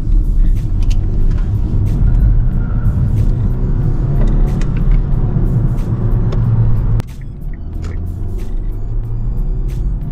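Car engine and road rumble heard from inside the cabin while driving, the engine pitch rising under acceleration, then the sound drops off abruptly about seven seconds in.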